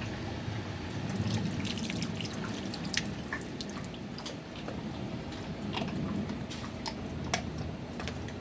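Kitchen sink sounds: water dripping and splashing, with many scattered sharp clicks over a steady low hum.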